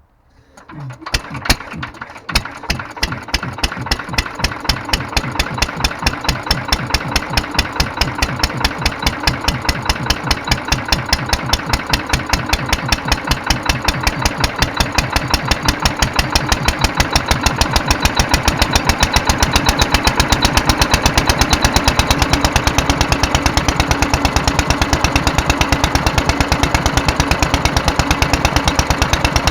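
Petter AS stationary engine starting from cold with no choke on battery-and-coil ignition, running on its rebuilt Solex 26 FV carburettor. A few uneven firing strokes about a second in pick up into a steady, even beat that grows louder as the engine settles into running.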